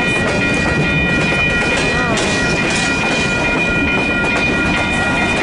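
CN freight train's cars rolling past at close range, steel wheels clattering over the rail joints in a steady loud rumble, with steady high-pitched tones ringing over it throughout.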